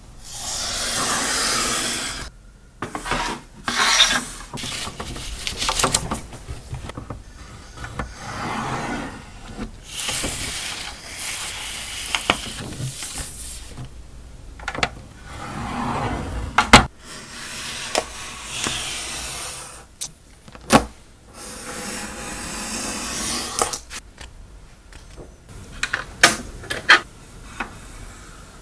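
Paper being handled and folded into an envelope: repeated rustling and sliding swishes of sheet paper, with several sharp crisp clicks and taps as folds are pressed down.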